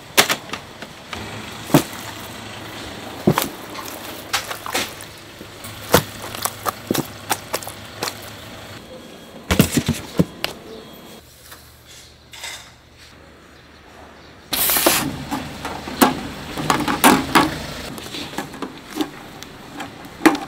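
Kitchen work in a fried chicken shop: an irregular string of sharp knocks and clicks from utensils and handling, quieter for a few seconds past the middle, then a sudden brief rush of noise and a tighter cluster of knocks.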